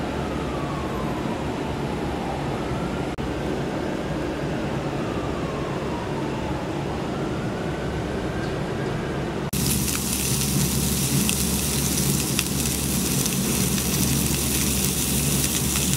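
A siren wails in the distance, its pitch slowly falling and rising, over a steady low hum. About halfway through, sausages go into hot oil in a cast-iron skillet and start sizzling, with a few sharp spattering pops.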